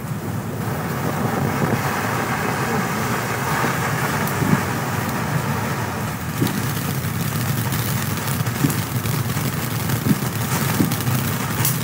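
Black Cat Medusa ground fountain firework burning: a steady rushing hiss of spraying sparks, with scattered sharp crackles.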